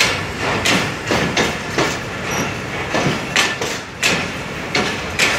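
Passenger train coach wheels clattering over rail joints as the train pulls out of the station. A rapid, uneven series of sharp clacks, often in close pairs, rises over a steady rolling rumble.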